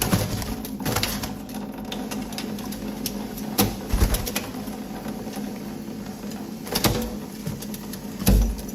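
Pet parrot making low cooing sounds, mixed with scattered clicks and a few louder thumps.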